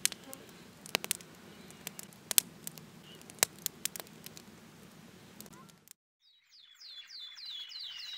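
Wood fire crackling: sharp, irregular pops of burning logs over a soft hiss, cutting off suddenly about six seconds in. Near the end a quick run of high, falling chirps begins as the music comes in.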